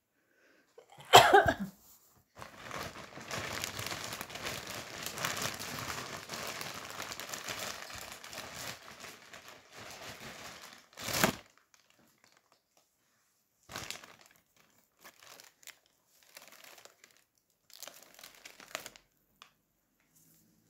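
Close crinkling and rubbing handling noise, with a sharp loud knock about a second in and another at about eleven seconds. Between them the crinkling is continuous, then it breaks into short scattered rustles.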